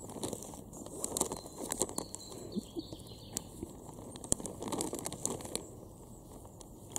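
Clear plastic bag crinkling and crackling in irregular bursts as it is handled and pulled open. Faint bird chirps in the background.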